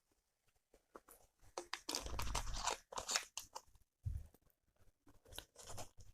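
A person chewing and swallowing close to the microphone: wet mouth clicks and smacks in two spells, each about two seconds long.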